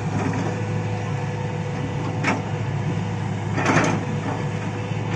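Hitachi excavator's diesel engine running steadily under hydraulic work, with two loud knocks about two and a quarter seconds and nearly four seconds in.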